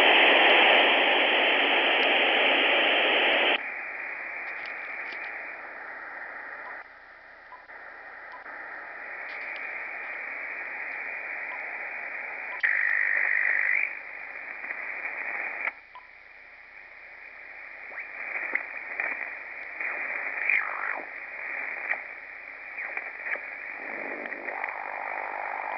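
Receiver hiss and static from an Icom IC-7300 transceiver's speaker as it is switched between bands. The hiss is loud for the first few seconds, then drops to a lower hiss, with a short loud burst about 13 seconds in. Near the end comes fainter, fluctuating band noise with light crackle, received on 80-metre lower sideband with preamplifier 2 switched on.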